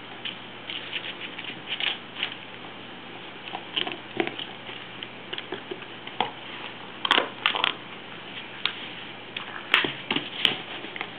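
A Boston terrier pawing at, mouthing and carrying a plastic frisbee on carpet: irregular light taps, clicks and scrapes, with a few sharper clicks in the second half.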